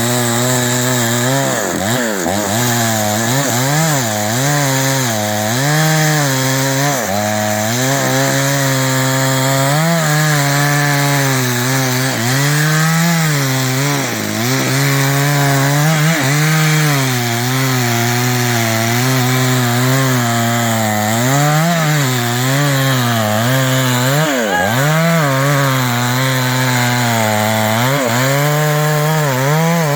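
New West 588 two-stroke chainsaw cutting into a big teak trunk at high revs, its engine note dipping and recovering over and over as the chain bites into the wood.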